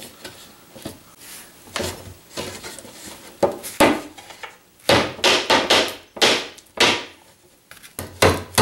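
Rubber mallet striking small plastic pegs into a particleboard drawer panel. A few light knocks come first, then a quick run of sharp strikes about five seconds in, and another series starting near the end.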